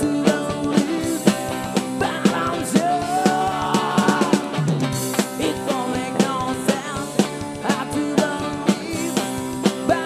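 A rock band playing live: electric guitars and drum kit with a steady beat, and a lead vocal sung over them.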